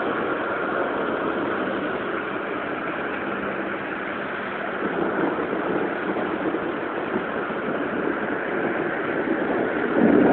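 Steady rain falling, an even hiss that swells a little louder near the end.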